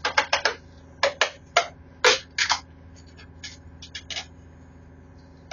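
Adhesive tape pulled off the roll in a series of short rips and wound tightly around a thick braided synthetic mooring rope to bind it. A steady low hum runs underneath.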